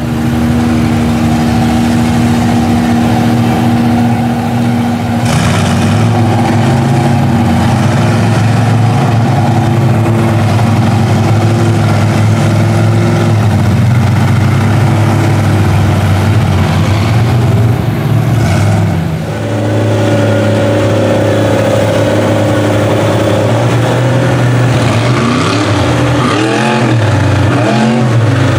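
Engines of lifted mud-bogging monster trucks running loud and steady, then revving with a rising and falling pitch near the end.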